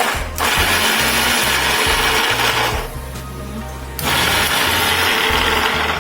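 Preethi Blue Leaf Platinum 750 W mixer grinder running in two bursts, about two and a half seconds and then about two seconds, with a pause of about a second between them, over background music.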